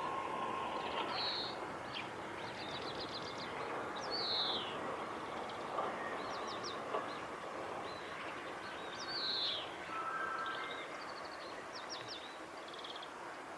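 Oriental greenfinch singing: phrases of short twittering trills broken by drawn-out, falling buzzy notes, one about four seconds in and another about nine seconds in, over steady background noise.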